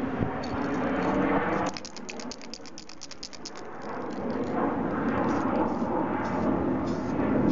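Aerosol spray-paint can being shaken, its mixing ball rattling in quick, even clacks (about ten a second) for about two seconds, starting near two seconds in. This is the shake that mixes the heavy pigment before spraying.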